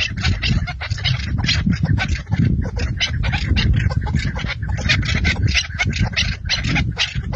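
Chukar partridge calling: a rapid, continuous chatter of repeated call notes, several a second, over a low rumble.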